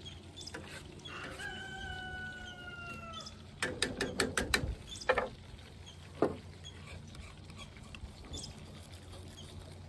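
A drawn-out animal call of about two seconds, falling slightly in pitch, followed by a quick run of sharp clicks and a few single clicks.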